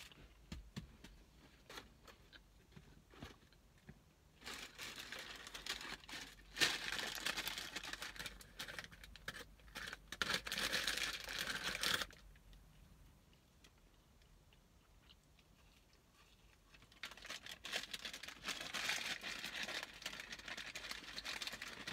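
Paper fast-food bag and wrappers crinkling and rustling as they are handled and opened, in two spells several seconds long with a quiet gap between them.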